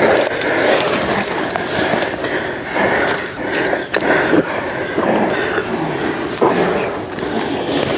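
Scuffle on a carpeted floor: clothing and tactical vests rustling and rubbing as several men wrestle and hold down a man, with scattered small knocks of gear.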